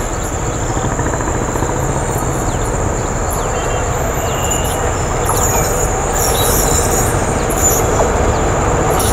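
Passenger train hauled by an electric locomotive approaching: a steady rumble of wheels on rail that slowly grows louder as it nears.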